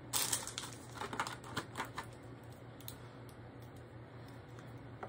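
Light clicking and tapping of small items being handled, a quick run of clicks in the first two seconds, then a few sparse ones, over a faint steady hum.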